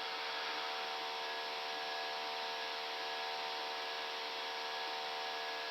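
Steady cockpit noise of an Airbus A319 in the climb: an even rush of air with several steady humming tones underneath.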